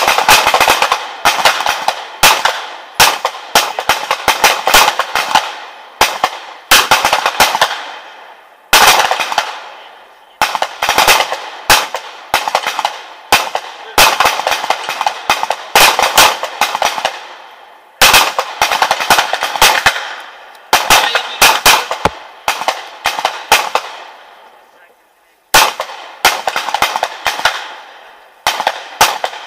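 Many pistols firing along a shooting line, among them a 9mm SIG P210: dense, irregular, often overlapping shots, each trailing off in an echo. There is a short lull about three-quarters of the way through before the firing picks up again.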